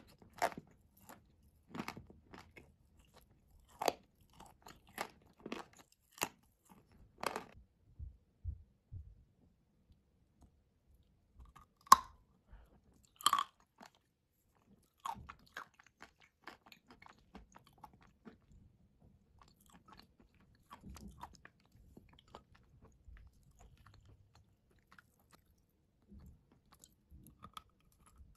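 Dry blue clay being bitten and chewed: crisp crunches in quick succession, two loud crunching bites about halfway through, then quieter, sparser chewing.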